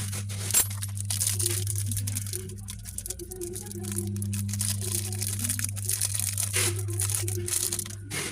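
Crinkly packaging rustling and crackling as it is handled, with many small clicks, over a steady low hum.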